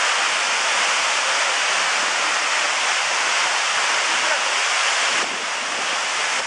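Waterfall rushing: a loud, steady wash of falling water, dipping slightly about five seconds in.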